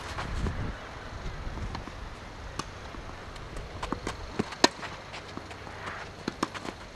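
Tennis rally: a sharp racket-on-ball strike right at the start and another loud one about four and a half seconds in, with fainter ball bounces, returns and players' running footsteps between.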